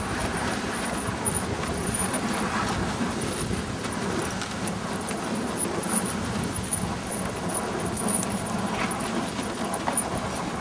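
Dog sled running behind a team of huskies: a steady rushing noise of the runners and paws over snow, with light irregular jingling of the harness metal.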